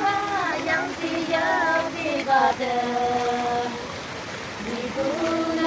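A high-pitched voice singing a slow melody with long held notes.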